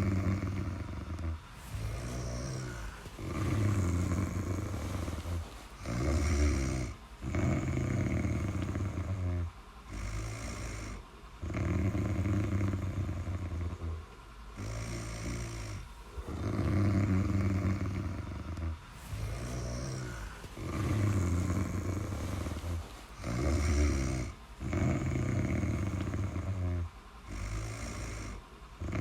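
Snoring: low, rough snores with each breath, one after another every couple of seconds with brief pauses between them.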